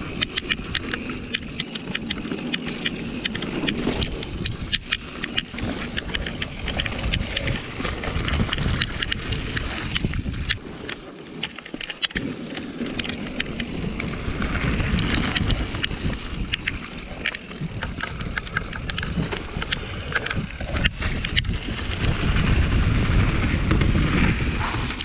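Mountain bike riding fast down a dirt trail strewn with dry leaves: wind rushing over the camera microphone, tyres rolling over the dirt, and many sharp rattles and knocks from the bike over bumps.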